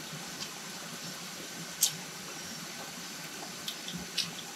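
Steady rush of flowing water, with a few short sharp clicks over it, the loudest about two seconds in and a small cluster near the end.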